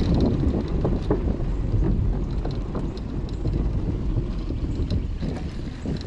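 Mountain bike rolling over a dirt trail and onto a wooden footbridge: a steady rumble of tyres and wind buffeting the microphone, with scattered clicks and rattles from the bike over the bumps.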